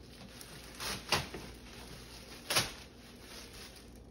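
Two short handling noises, about a second in and again near two and a half seconds, as a hardside suitcase is handled, over quiet room tone.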